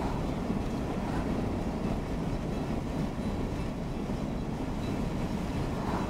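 Steady low road and tyre rumble heard inside a moving car's cabin at highway speed, with faint brief swells as oncoming cars pass.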